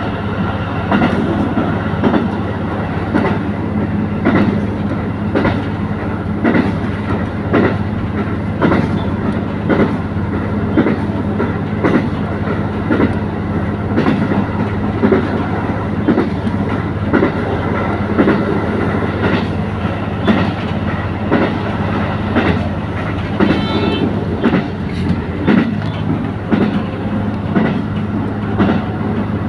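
Diesel railcar running along the track: a steady low engine and running hum under a regular clickety-clack of wheels over rail joints, about one to two clicks a second.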